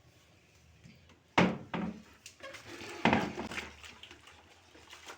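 Knocks and thuds of a refrigerator's door and fittings being handled: one sharp knock about a second and a half in, then a second knock, and a cluster of knocks and rattles about three seconds in.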